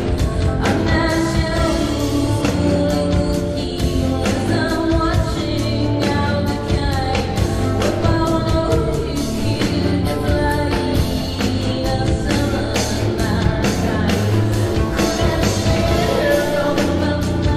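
A woman singing a song live with a rock band, her voice over a steady drum beat and bass.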